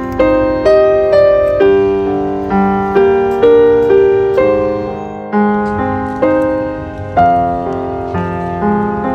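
Background piano music: single notes struck one after another, about one or two a second, each dying away before the next.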